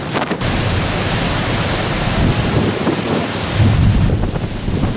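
Hurricane-force wind roaring with wind-driven rain, heavy wind buffeting the microphone. The sound shifts abruptly about half a second in and again near the end, at cuts between clips.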